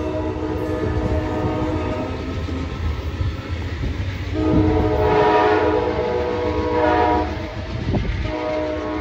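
Amtrak locomotive's K5LA five-chime air horn sounding steadily from the far end of a departing passenger train, quilled louder twice, about halfway through and again a second later. Under it, the low rumble and clickety-clack of the passenger cars rolling away over the rails.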